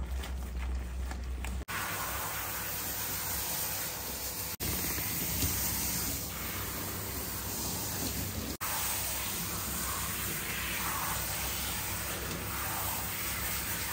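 Water running from a handheld shower sprayer onto a dog's soapy coat, a steady hiss and splash as the shampoo is rinsed out. It gets going about a second and a half in.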